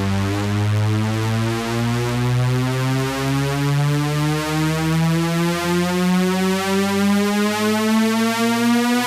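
Electronic music: a synthesizer tone rich in overtones climbing slowly in pitch, in small steps, like a build-up riser.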